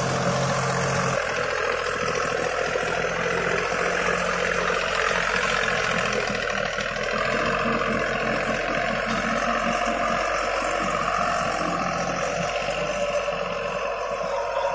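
Deutz-Fahr Agrolux 50 tractor's diesel engine running steadily under load as it drives a Shaktiman rotavator through the soil by its PTO, the rotor blades churning the earth.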